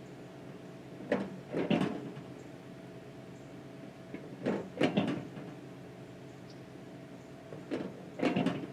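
Microwave oven running with a steady electrical hum, a metal Juul vape inside. Three times, about every three seconds, comes a short double knock or rattle.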